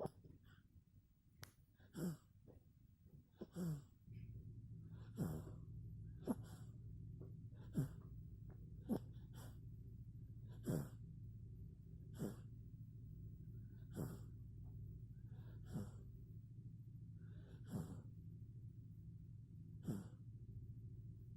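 A 4-month-old baby snoring, a short snort-like noisy breath with a falling pitch about every one and a half to two seconds, over a steady low hum that comes in about four seconds in.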